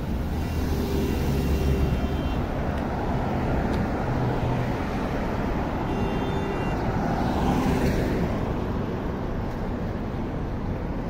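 Road traffic noise from vehicles passing close by. Two louder pass-bys swell, one about a second in and one near eight seconds in.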